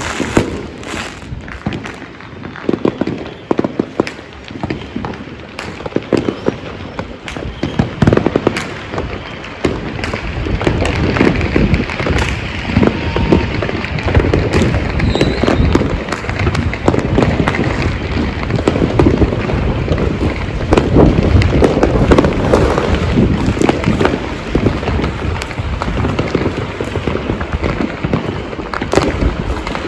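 Fireworks and firecrackers going off all around without a break: a dense mix of bangs, booms and crackling that thickens into a continuous barrage about a third of the way in.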